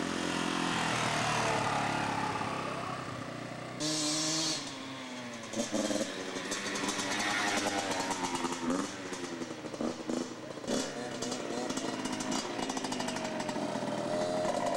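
Small dirt bike engines running and revving as riders pass, the engine pitch rising and falling with the throttle. The sound changes abruptly about four seconds in, with a short burst of hiss.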